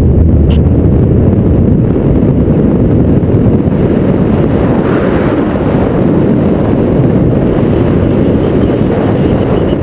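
Loud, steady low rumble of airflow buffeting a GoPro's microphone during paraglider flight.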